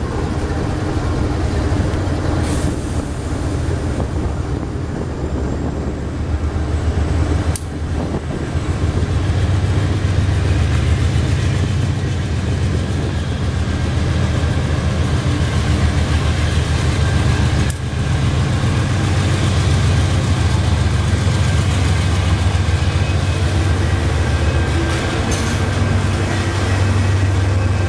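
GE ES43BBi diesel-electric locomotives of a freight train running past, a steady deep engine rumble that grows louder as the units come alongside.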